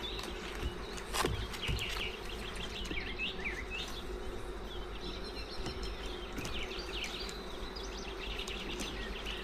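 Honeybees buzzing in a steady hum around an open hive, with small birds chirping repeatedly over it and a single sharp click about a second in.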